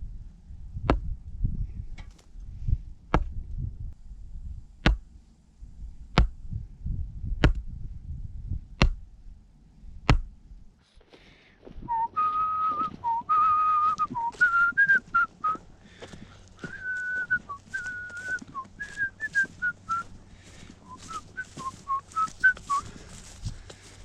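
A person whistling a tune in short held notes that step up and down, starting about halfway through. Before it, sharp single clicks come about once every second or so over a low rumble.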